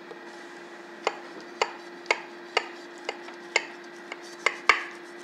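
A chef's knife cutting down through a baked eggplant lasagna, its blade clicking sharply against the glass baking dish about twice a second from about a second in. A steady low hum runs underneath.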